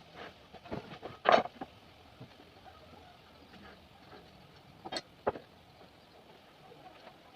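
A few separate sharp knocks and clacks of wood being handled: the loudest about a second in, and two more just past the middle.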